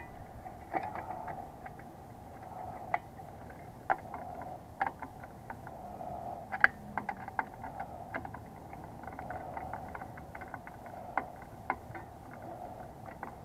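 Hands working wiring at a metal A/C disconnect box: scattered, irregular small clicks and taps of wire, plastic and metal being handled, the sharpest about halfway through, over a faint steady background noise.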